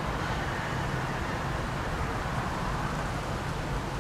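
Steady background rumble and hiss with a low hum, unchanging throughout.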